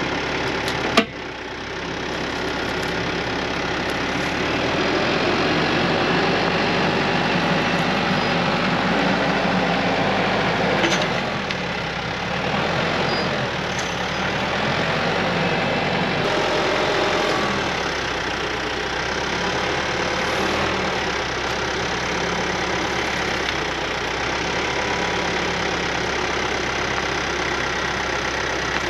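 TYM tractor's diesel engine running steadily while its loader works, with one sharp click about a second in.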